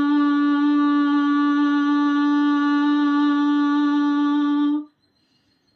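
A person's voice holding a long, loud 'aah' on one steady pitch, breathed out with the mouth opened as wide as possible as a breathing exercise; it stops abruptly about five seconds in.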